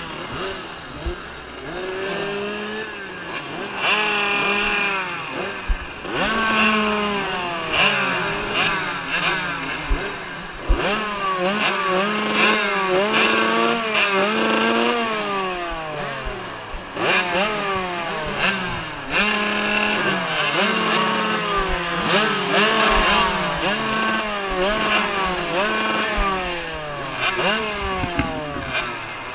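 Motocross bikes revving on the starting line behind the gate, engine notes rising and falling again and again with several engines overlapping.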